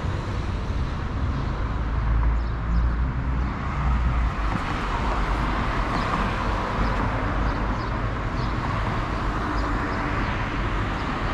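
City street traffic: cars going by with a steady low rumble and road noise.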